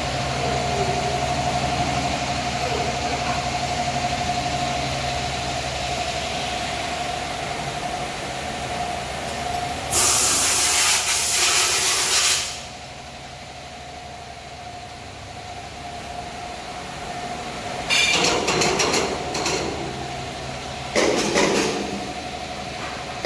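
Band saw cutting machine for maxi toilet paper rolls running with a steady whine. Loud hissing bursts of a couple of seconds each break in: one about ten seconds in and two more near the end.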